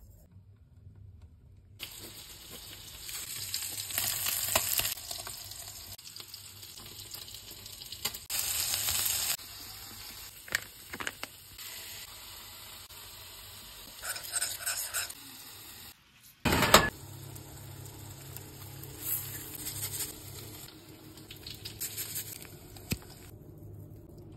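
Kitchen cooking sounds over several quick cuts: hissing like food sizzling in a hot pan, and stirring and handling noises, with one loud knock about two-thirds of the way through.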